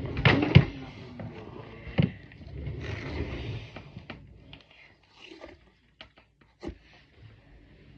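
Handling noises as a stretchy squishy toy is pulled and fiddled with close to the microphone: scrapes and a few knocks, the loudest about half a second in and another at about two seconds, then lighter rustles and small clicks.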